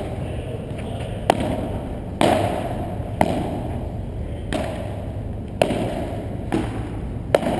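Padel rally: the ball is struck by paddles and bounces on the court and walls, giving sharp pops roughly once a second, each ringing briefly in the large hall.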